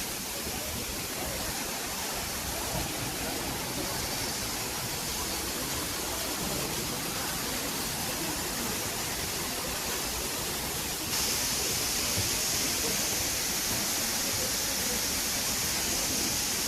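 Waterfall rushing in a steady, even roar of falling water, growing louder about two-thirds of the way through.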